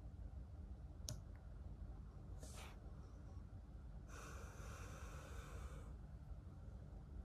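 Quiet room tone with a steady low hum, a small sharp click about a second in, a short soft hiss at about two and a half seconds, and a longer soft hiss from about four to six seconds.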